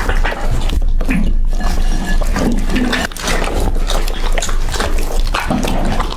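A dog eating, with wet chewing, smacking and licking sounds packed closely together.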